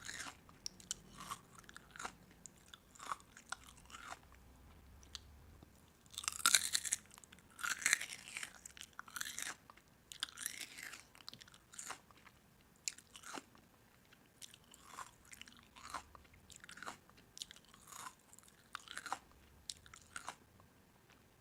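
Crisp food being bitten and chewed close up, in irregular crunches, with a louder run of crunching about six to eight seconds in.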